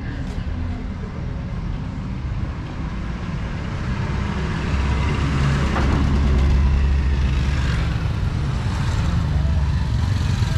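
Street traffic: vehicle engines running, with a small motorcycle riding toward and past close by; the engine rumble grows louder about halfway through.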